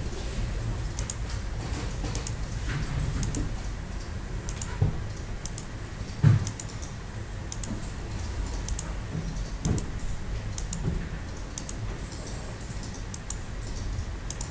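Computer mouse clicking, short sharp clicks often in quick pairs about once a second, as shapes are selected one at a time. Over a low hum there are a few dull knocks against the desk, the loudest about six seconds in.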